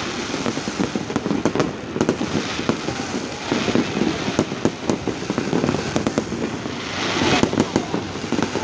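Aerial fireworks going off in a rapid, continuous run of sharp cracks and bangs over a steady low rumble, swelling louder about halfway through and again near the end.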